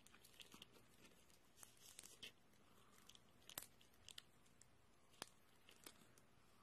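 Near silence: room tone with a few faint, scattered clicks and ticks.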